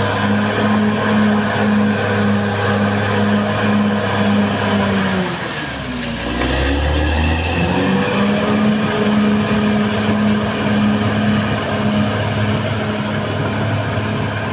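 Caterpillar D6R XL bulldozer's diesel engine running steadily. About five seconds in, the engine speed drops sharply for a couple of seconds, then climbs back to its working speed.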